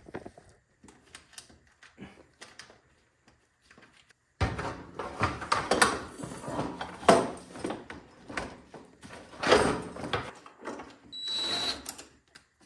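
Plastic housing panels of a Briggs & Stratton Q6500 inverter generator being handled and fitted back on, first a few scattered clicks, then from about four seconds in a run of irregular clatter and scraping. A short steady high tone sounds near the end.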